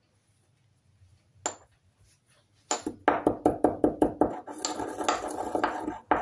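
A wooden pestle pounding in a small turned wooden mortar. One knock comes about a second and a half in, then from about three seconds in a fast, steady pounding of about five strikes a second.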